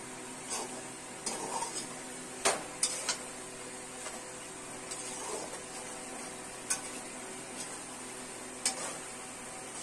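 Metal spatula stirring macaroni in masala around a metal kadhai, with irregular scrapes and clinks against the pan, the sharpest about two and a half seconds in. A low sizzle of the frying masala runs underneath.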